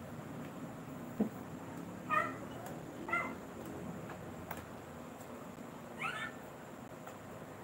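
A cat meowing three short times, the last call rising in pitch. A sharp tap about a second in and a faint click later.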